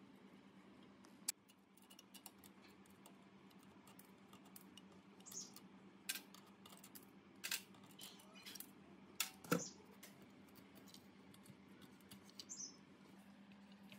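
Scattered light clicks and taps, the loudest about a second in and again a little past the middle, from a nut driver and gloved hands working the terminal nuts, studs and wire lugs in an electric motor's terminal box. A faint steady low hum runs underneath.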